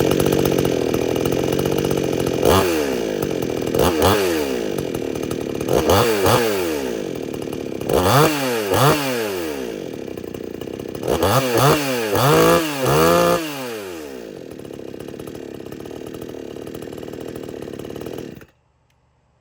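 Large warmed-up two-stroke gas chainsaw running, its throttle blipped into a string of quick revs that rise and fall in pitch, then settling to a steady idle before it is switched off suddenly near the end.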